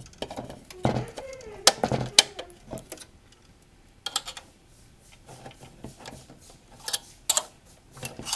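Irregular clicks, knocks and rattles of an Xbox 360's plastic and metal parts being handled while the disc drive is worked loose.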